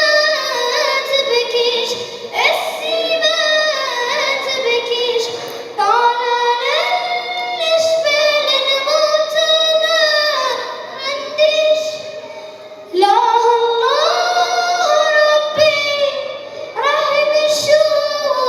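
A girl's solo voice singing an Arabic nasheed, with long held notes and ornamented sliding turns between them, pausing briefly for breath twice.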